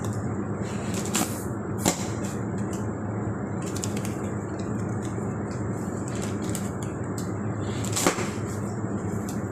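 Piston compressor running steadily, with a few sharp knocks: one just after a second in, another near two seconds, and a louder one near the end.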